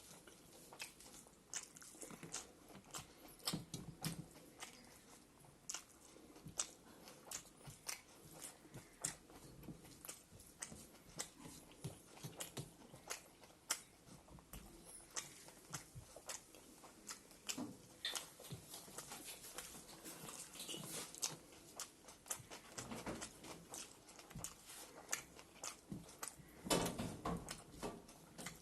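Close-up chewing and mouth sounds of someone eating rice with greens, buffalo meat and pickle: many short, irregular clicks and smacks, several a second.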